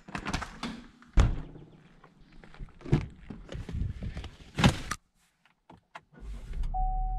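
Doors and bags being handled, getting into a GMC SUV: rustling and knocks, with a heavy thunk about a second in and another over four and a half seconds in. After a short hush, a low steady rumble starts near the end, the engine starting, with a brief single-tone chime.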